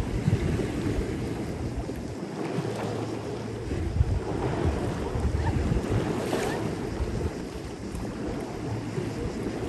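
Wind rumbling and gusting on the microphone at the seaside, over the wash of waves on the shore.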